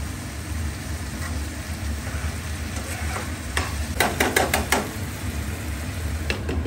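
Spoon stirring and scraping tomato masala frying in a non-stick kadai, the masala sizzling gently, with a quick run of clinks against the pan about four seconds in. Near the end a glass lid is set on the pan with a clink.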